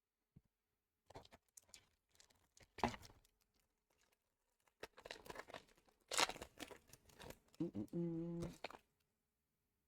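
Foil booster pack wrappers and plastic trash crinkling and tearing in irregular handling noises, with a couple of sharper rips. A short low hum sounds near the end.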